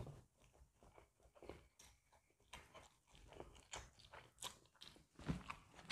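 Faint chewing and slurping of noodles and rice: soft, irregular wet mouth clicks, a little more often and stronger in the second half.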